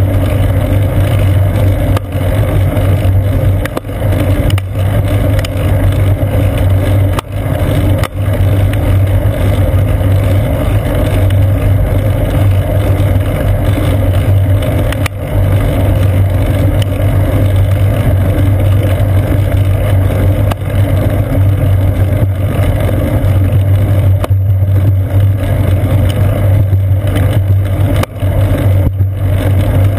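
Steady low rumble of wind and road vibration on a seat-post-mounted GoPro Hero 2 as the bicycle rolls along, broken by a few sharp knocks as the mount is jarred over bumps.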